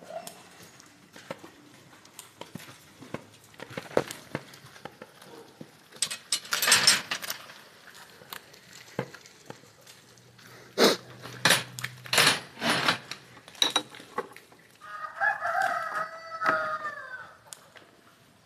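A rooster crows once near the end, a single drawn-out crow of about two seconds. Before it come loud rough scuffing noises of someone walking over the dirt yard.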